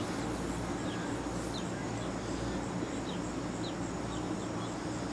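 Outdoor ambience: a steady low background hum with faint, short, falling chirps repeating about once a second.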